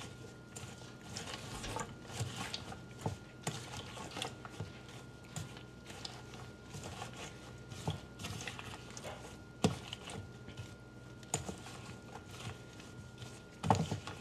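Julienned carrot and daikon strips being tossed by a gloved hand in a stainless steel bowl: irregular rustling and light clicking of the vegetables against each other and the bowl, with one sharper knock partway through, as the salt, maple syrup and vinegar are worked into a quick pickle.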